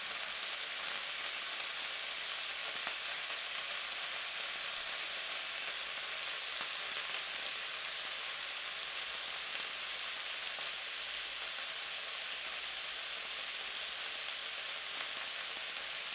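Beef rouladen searing in hot fat in a nonstick frying pan: a steady, even sizzle as the meat browns.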